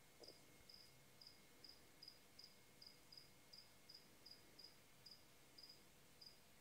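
A cricket chirping quietly: short, even chirps at a little over two a second.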